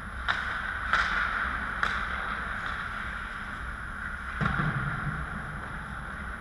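Ice hockey play in an indoor rink: a steady hiss of skates and arena air under three sharp stick-and-puck clacks in the first two seconds, and a duller thud about four and a half seconds in.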